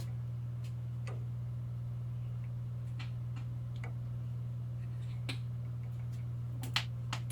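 Steady low hum with scattered faint clicks and taps, and a sharper click near the end.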